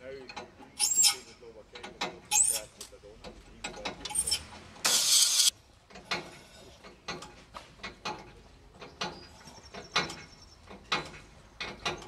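Hand work on rusty locomotive bolts: a few short high squeaks, a brief loud rushing noise about five seconds in, then a run of irregular metallic clicks and taps.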